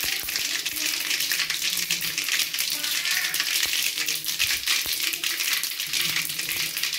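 Mustard and cumin seeds spluttering in hot oil in an aluminium kadai: a steady, dense crackle of tiny pops as the seeds fry.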